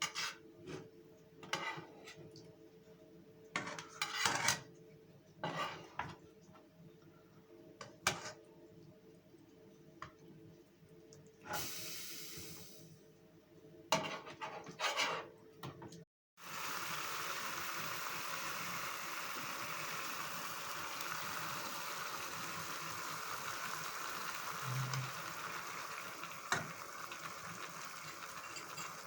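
Metal utensils and dishes clinking and knocking a dozen or so times, with a short hiss about 12 s in. After a sudden cut about halfway through comes the steady hiss of food cooking in a pan.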